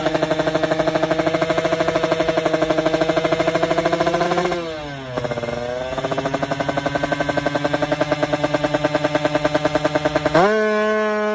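Suzuki Satria FU motorcycle engine, bored out to 200cc for drag racing, held at high revs with a fast, even pulsing. About four and a half seconds in the revs dip and climb back. Near the end it gives way abruptly to a different, steadier tone.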